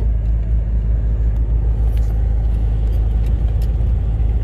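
Lorry driving at steady speed, heard from inside the cab: a constant low engine and road rumble with a few faint light rattles.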